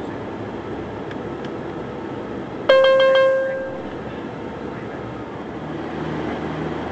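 Steady airliner cabin noise from the engines and airflow on the descent, with an electronic cabin chime ringing once, clear and bell-like, about two and a half seconds in and fading over about a second.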